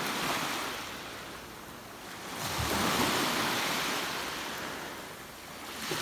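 Small sea waves breaking and washing up a beach, surging twice: once right at the start and more loudly about two and a half seconds in, easing off in between.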